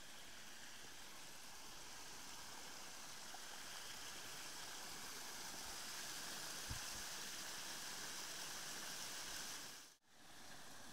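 Water spilling over a small stone weir and running down into a shallow stream: a steady rushing that grows a little louder, then cuts out briefly near the end.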